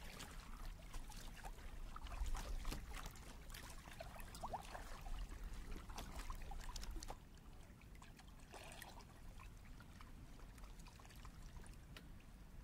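Small waves lapping and trickling against a kayak's hull, faint and uneven, with little splashes and drips; a low rumble under it eases off about halfway through.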